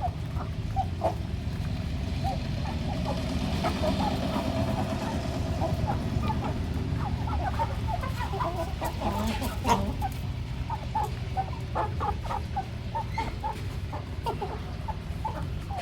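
A flock of village chickens clucking while they feed: many short, overlapping clucks, busiest in the middle, over a steady low rumble.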